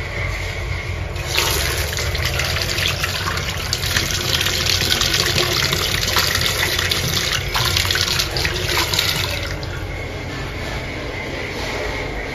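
Water running from a bathroom sink tap, splashing into the basin and down the drain. It strengthens about a second and a half in and is quieter for the last few seconds.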